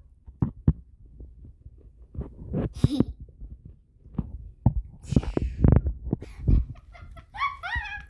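Irregular low thumps and knocks of objects being handled and bumped on a tabletop, with a brief hiss about three seconds in. Near the end a child makes wavering high-pitched vocal sounds.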